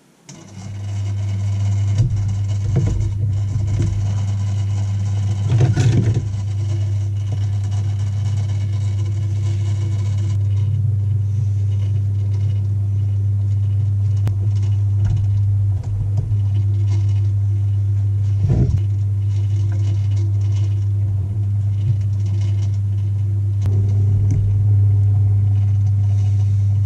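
A steady, loud electric motor hum that switches on about half a second in, with a few light knocks over it.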